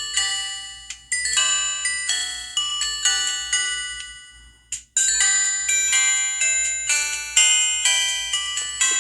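Downloaded ringtone playing on a Samsung SGH-T629 mobile phone: a quick melody of struck notes, each dying away. It fades out about four and a half seconds in, and after a short click a ringtone melody starts again.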